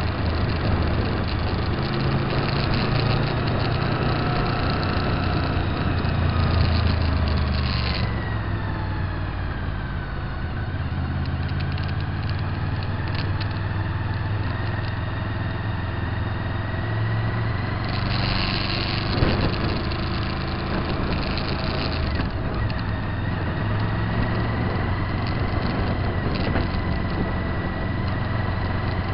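Motorcycle engine running while riding, with wind and road noise. The engine note falls about eight seconds in and then slowly climbs again.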